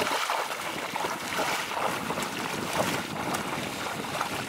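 Legs in chest waders wading through shallow water, splashing and sloshing with each stride.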